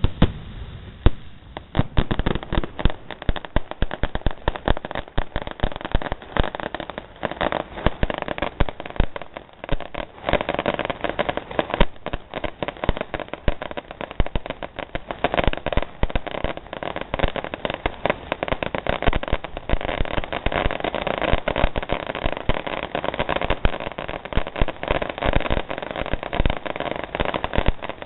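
Fireworks going off: a dense, continuous string of crackling pops and bangs, many a second, with louder bangs standing out now and then.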